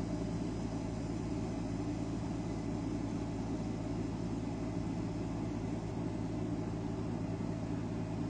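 Oil-free scroll air compressor running steadily: an even mechanical hum with a low electric-motor drone under a hiss of air.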